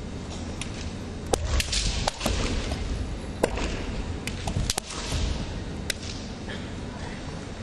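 Bamboo kendo swords (shinai) cracking sharply against each other and against armour in quick exchanges: a cluster of cracks a little over a second in, a single one midway, another tight cluster just before the five-second mark and a last one about six seconds in, with dull thuds of feet stamping on the wooden floor.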